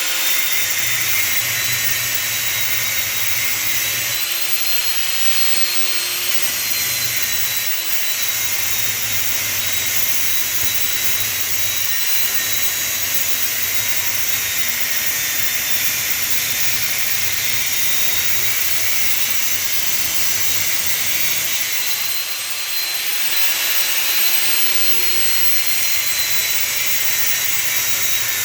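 Angle grinder with a cut-off disc running at full speed as it cuts through heavy brass, making a loud, steady high-pitched whine. The pitch and level dip briefly about three-quarters of the way through.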